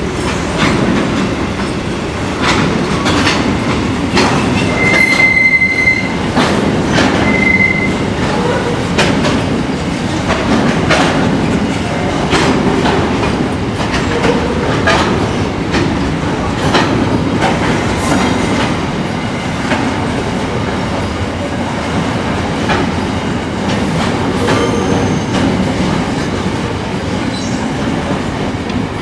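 Empty grain hopper wagons rolling past, with a steady rumble and wheels clacking irregularly over rail joints. A brief high wheel squeal comes about five seconds in and again shortly after.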